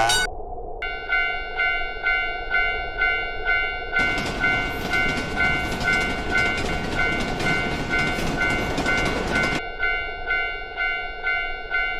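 Railroad crossing warning bell clanging at about two strokes a second, with a train rushing past for five or six seconds in the middle. A steady low tone runs underneath.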